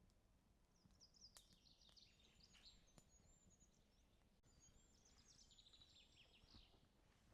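Faint songbird song: two high, rapid, twittering phrases a few seconds long, the second starting about four and a half seconds in, with a few faint clicks.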